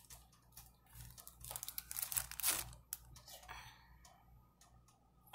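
Thin clear plastic bag crinkling and rustling in soft, irregular bursts as fresh herb sprigs are pulled out of it, with one sharp click about three seconds in.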